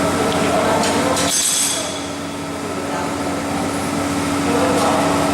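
Steady workshop machine noise with a constant hum, and a sudden burst of high hiss about a second in.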